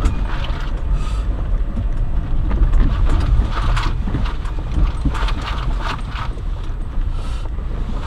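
Car driving slowly over a rutted, snow-covered dirt track, heard inside the cabin: a steady low rumble of engine and tyres with irregular knocks and rattles from the body and suspension over the ruts.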